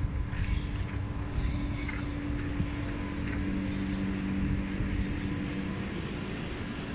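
Outdoor street noise: a steady hum, with a second lower hum joining in the middle, over wind rumbling on the phone's microphone.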